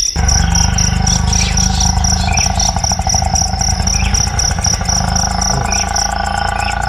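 Rapid, evenly pulsed insect chirping, cricket-like, over a loud low rumble that cuts in abruptly at the very start.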